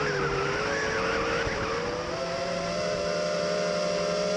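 Brushless motors of a 5-inch FPV racing quadcopter (Cobra 2204 2300kv motors on triple-blade props) whining in flight, with the pitch wavering up and down as the throttle changes, heard from the onboard camera along with a rushing noise.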